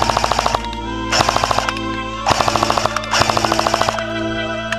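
Airsoft electric gun firing rapid full-auto bursts: one burst ending about half a second in, then three more short bursts. Background music plays underneath.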